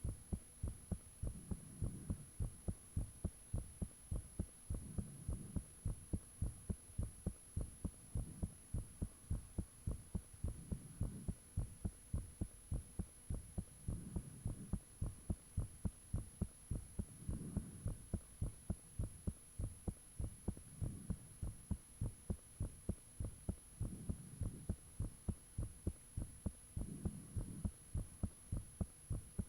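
A person's heartbeat recorded close up, with fast, regular low thuds. A low swell rises under the beats every three seconds or so, and a thin steady high-pitched tone sits above.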